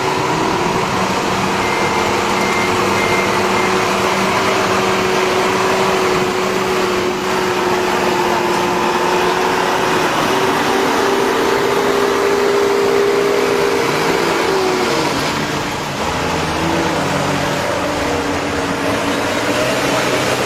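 An engine running steadily; its note rises about ten seconds in and falls away around fifteen seconds.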